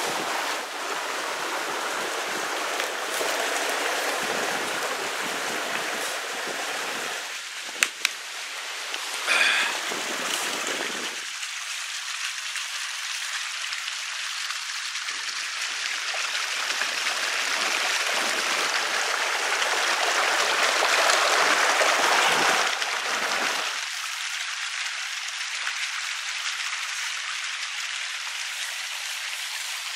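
Steady rushing noise, with a sharp click about eight seconds in and a swell in loudness a little after twenty seconds.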